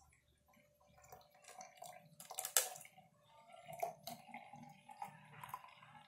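Strained passion fruit juice being poured from a blender jar into a glass carafe: faint trickling and splashing, with one sharp knock about two and a half seconds in.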